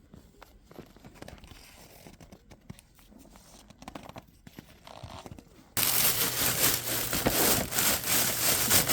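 Faint scattered crackles, then near the end a sudden loud crinkling, crunching rustle full of sharp crackles.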